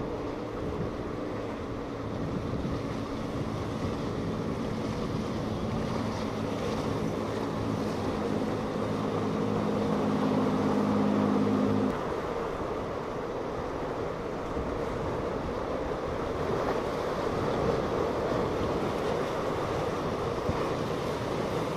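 A sportfishing boat's engine droning as it runs past at speed, getting louder until it cuts off abruptly about twelve seconds in. After that comes the rush of wind and breaking wake and waves.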